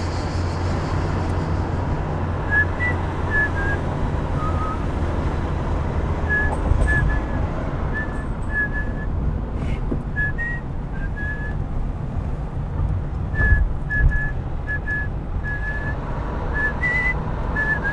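A tune whistled in short notes with a few pauses, over the steady low rumble of a car driving, heard inside the cabin.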